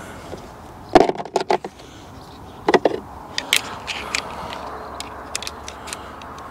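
Scattered clicks and clacks, singly and in short clusters, from a hand crimping tool and its interchangeable jaws being handled and changed over, over a steady low background hiss.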